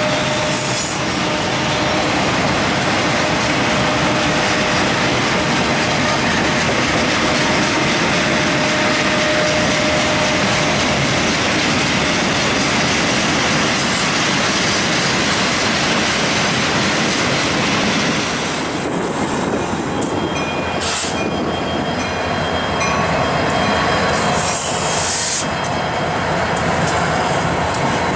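Freight cars rolling past close by: a steady rumble and clatter of steel wheels on rail, with thin squealing tones from the wheels at times.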